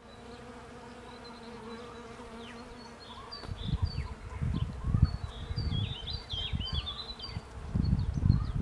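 Honeybees buzzing at cherry blossoms, a steady drone for the first three seconds or so. Then gusts of wind rumble on the microphone, loudest near the end, with small birds chirping in the background.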